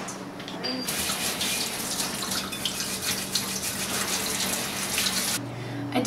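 Water running steadily from a faucet into a sink. It starts about a second in and cuts off abruptly near the end.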